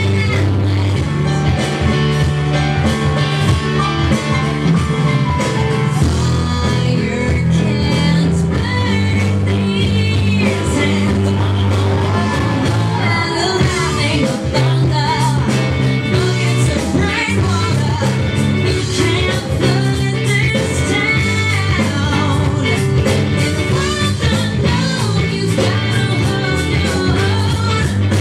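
A rock song with singing, guitar and a heavy bass line, played loud over a nightclub sound system.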